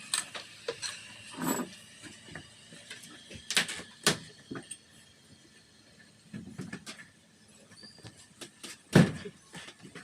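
Scattered knocks and clanks of tools on metal parts, with the loudest single knock about nine seconds in.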